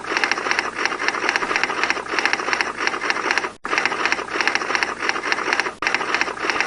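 Rapid typewriter key clatter used as a cartoon character's voice, a fast stream of clacks in phrase-like runs, broken twice by brief, abrupt gaps.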